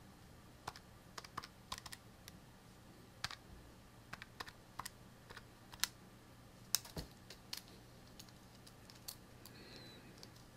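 Keys clicking in an irregular run of separate taps, as figures are keyed in to work out the amplifier's gain.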